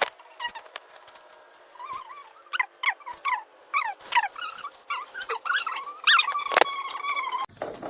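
Dog whimpering: a rapid run of short, high, wavering whines and yips that breaks off abruptly near the end.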